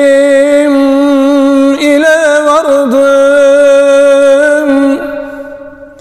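A man's solo singing voice holding one long note of a Turkish song, with a slight waver and a brief ornamental turn about two seconds in. The note fades away about five seconds in.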